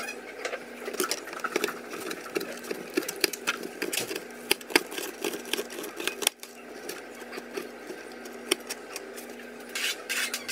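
Chef's knife chopping cooked bacon on a plastic cutting board: irregular sharp taps over a steady low hum.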